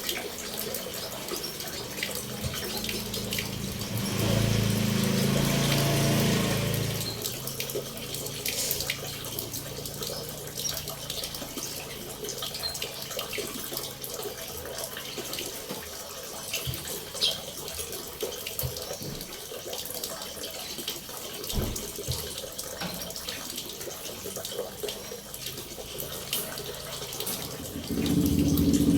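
Steady running water, with many faint short chirps and ticks over it; a louder low-pitched sound swells for a few seconds about four seconds in.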